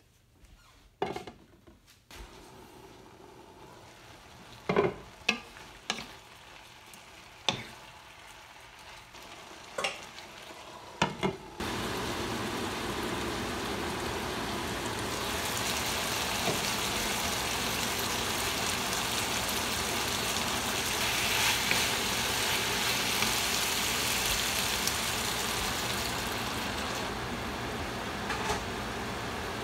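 Beef tapa strips cooking in their marinade in a nonstick skillet, sizzling with a steady hiss that starts abruptly about a third of the way in and is loudest under a glass lid. Before it, a low hiss broken by a few sharp clinks or knocks.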